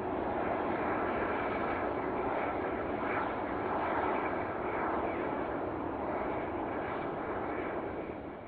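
Boeing 747-400F freighter's four turbofan engines running at taxi power, a steady jet roar with a faint whine; it fades out near the end.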